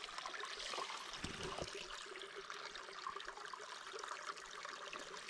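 Small mountain creek running with a steady trickle.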